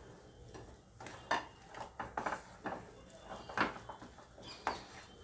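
Wooden spatula stirring stiff milk-powder peda dough in a nonstick pan: short scrapes and taps against the pan, about two or three a second, unevenly spaced.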